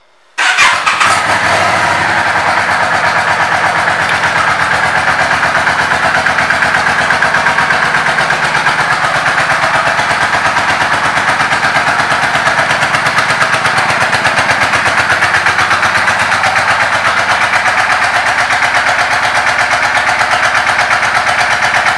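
Yamaha V Star 650's air-cooled V-twin engine starting about half a second in, then settling into a steady idle with an even pulsing beat.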